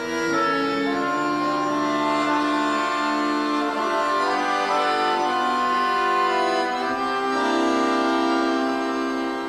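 Accordion playing a tune over held chords, with sustained reedy notes that change pitch every second or so.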